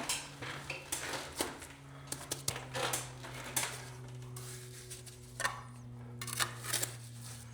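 Scattered light clinks, scrapes and knocks of masonry work, with stone and a trowel against mortar as a lintel is bedded and wedged. A faint steady low hum runs underneath.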